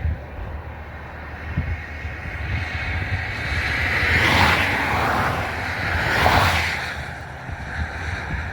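Wind rushing and buffeting the microphone in a steady noisy roar, swelling louder twice, about four and about six seconds in.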